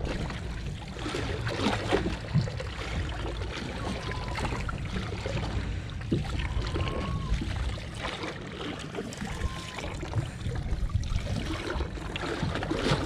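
Water lapping and sloshing against the hull of a drifting fishing boat, with a steady low rumble and scattered small knocks and clicks. Three short, faint whistle-like tones come a few seconds apart.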